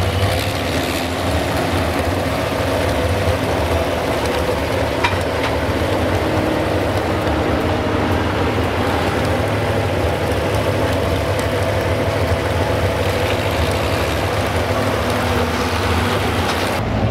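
Modified 4x4 pulling truck's engine running hard and steady through a pull, a loud, unbroken drone. The sound cuts off abruptly near the end.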